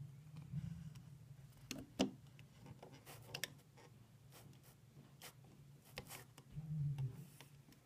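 Faint, scattered clicks and taps of a metal hook against the plastic pegs of a rainbow loom as rubber bands are hooked on, about seven over several seconds, over a low steady hum.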